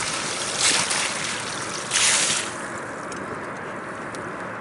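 Water sloshing and splashing in short hissing bursts, twice in the first two and a half seconds, over a steady background of wind and lapping water.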